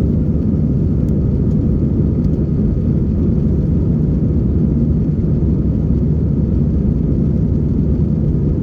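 Airliner climbing after takeoff: a steady low roar of jet engines and rushing air, heard from inside the cabin.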